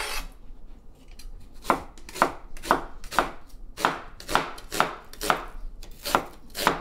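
Chef's knife slicing an onion thinly on a wooden cutting board: a steady run of sharp knife-on-board chops, about two a second, after a brief pause near the start.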